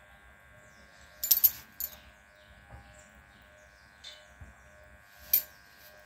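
A steady, faint hum made of several steady tones, broken by sharp clicks: a short cluster about a second in and a single louder click just past five seconds.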